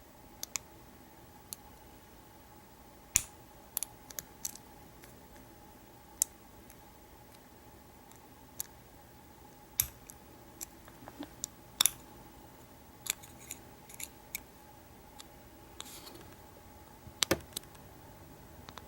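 Sharp little metallic clicks at irregular intervals, sometimes in quick pairs, from a hook pick and pry-bar tension wrench working the pin stack of an American Series 50 solid steel padlock during single pin picking.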